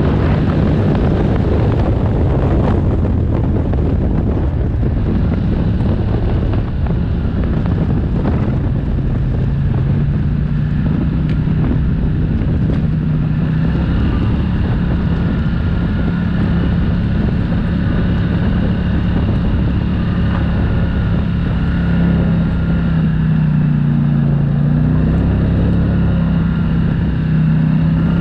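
ATV engine running steadily as the quad rides along a dirt trail, its pitch holding fairly even with a brief dip and rise near the end, with some wind noise on the microphone.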